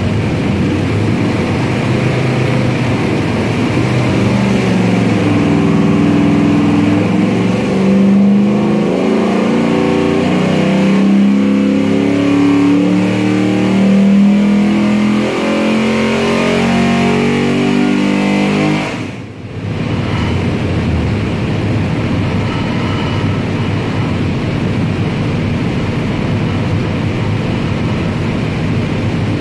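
429 cubic inch LS-based stroker V8 running under load on an engine dyno, its pitch climbing in steps over several seconds. About 19 seconds in the sound drops sharply for a moment, then a steady, even running noise with no rising pitch carries on.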